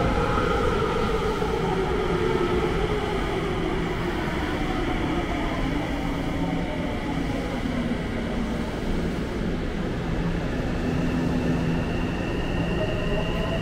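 Tsukuba Express electric train at the platform, its motor whine falling steadily in pitch over several seconds as the train slows, over a steady rumble. Near the end a new whine starts rising in pitch as a train begins to pull away.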